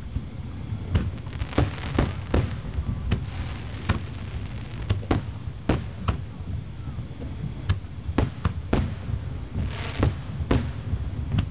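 Aerial fireworks shells bursting: about twenty sharp bangs at irregular intervals, some in quick pairs, over a low rumble.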